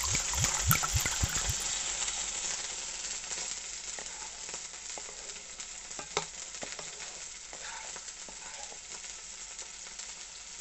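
Tamarind soaking water poured into a hot pan of fried masala, sizzling loudly as it hits, then settling into a softer steady sizzle as the masala is stirred with a wooden spatula. A single sharp knock about six seconds in.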